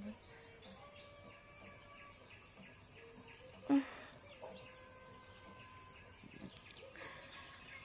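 Faint outdoor ambience with small birds chirping now and then. One brief, louder sound comes just under four seconds in.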